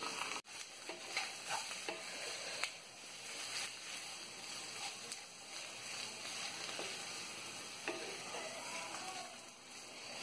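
Baby bok choy sizzling in hot oil in a wok as it is stir-fried with a wooden spatula, a steady sizzle broken by short scrapes and knocks of the spatula against the pan.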